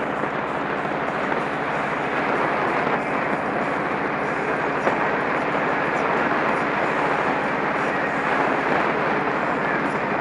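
Cruiser motorcycle riding at a steady cruising speed: the engine running evenly under a constant rush of wind and road noise.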